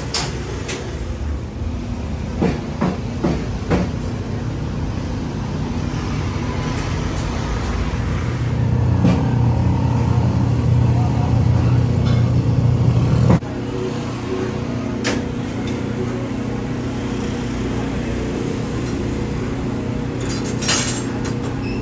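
Road traffic noise: a vehicle engine's low rumble that grows louder through the middle and cuts off abruptly a little past halfway, then a steadier, quieter rumble. A quick series of sharp knocks comes a few seconds in, with a few more later.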